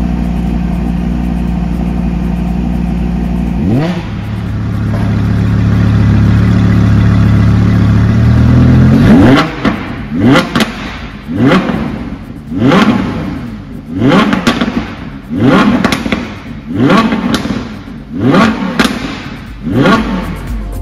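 Audi R8 V10 Plus's 5.2-litre V10 through its sport exhaust, idling steadily with a brief rise in pitch about four seconds in. From about nine seconds it is blipped in a run of about eight sharp revs, each climbing and falling back, roughly every second and a half.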